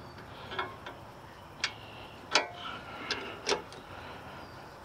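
Wrenches on a 14 mm nut and bolt of a steel grill-guard bracket, giving about five sharp metallic clicks at uneven intervals as the nut is worked loose.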